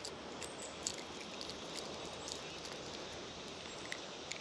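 Faint steady outdoor hiss with a few light clicks and taps scattered through it, from hands working the small treble hooks of a lure out of a sunfish.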